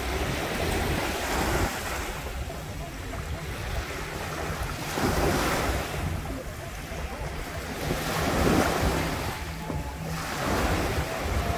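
Small bay waves lapping and washing up onto the beach, swelling about every three seconds, with wind buffeting the microphone as a steady low rumble.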